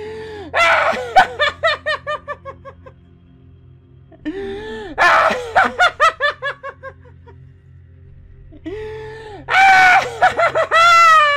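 Cartoon character's exaggerated laugh, three bouts of rapid 'ha-ha' pulses that trail off, the last ending in a long falling cry, over a low steady music drone.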